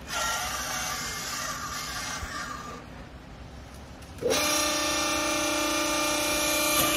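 Vertical hydraulic baler's motor and pump running: a rough mechanical noise for the first three seconds, then from about four seconds in a steady pitched hum as the ram lifts the press plate off the strapped bale of clothing.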